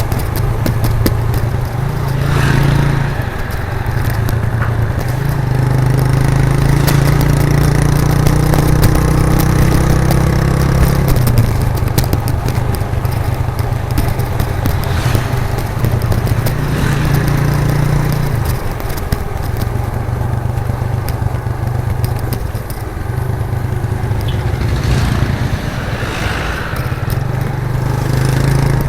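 1998 Suzuki GN125's single-cylinder four-stroke engine running through its raw exhaust while riding. The note rises slowly under throttle and drops off briefly several times as the throttle is eased and picked up again.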